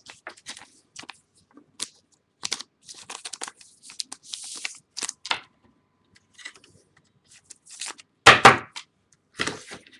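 Trading cards and their packaging being handled: a scattered run of short rustling, crinkling and clicking noises, with the loudest crinkling tear about eight seconds in.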